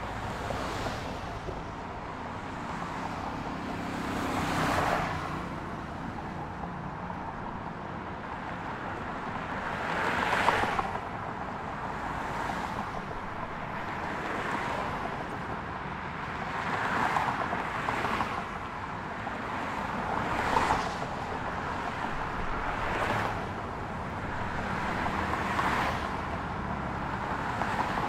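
Traffic on a multi-lane city highway passing close to a curbside recorder: cars go by one after another, each pass swelling and fading over a second or two, over a steady background of traffic noise. The loudest pass comes about ten seconds in.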